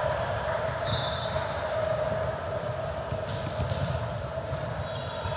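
Indoor volleyball ball hitting and bouncing on the court, with a couple of sharp knocks a little past the middle, over a steady background hum in the gym.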